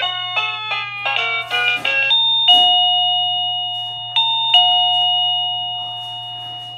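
Boomile wireless doorbell receiver ringing with an electronic chime ringtone. A quick run of melody notes plays for about two seconds, then two ding-dong pairs sound and ring on, slowly fading.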